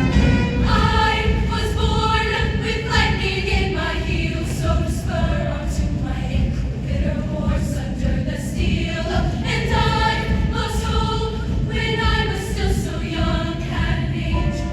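A show choir singing in chorus over musical accompaniment.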